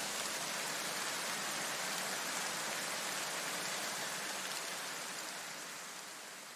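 Steady hiss of rain-like noise in the soundtrack, with no beat or melody, fading away over the last two seconds.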